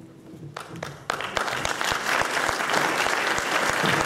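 Theatre audience applauding, starting suddenly about a second in and carrying on steadily.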